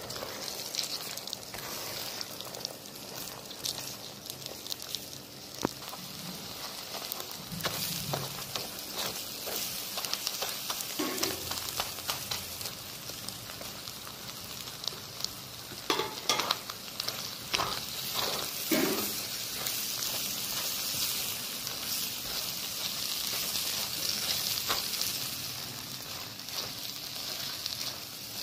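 Eggs frying and sizzling in oil in a non-stick kadhai with a steady hiss, while a silicone spatula stirs and scrambles them. A few sharp knocks stand out in the middle.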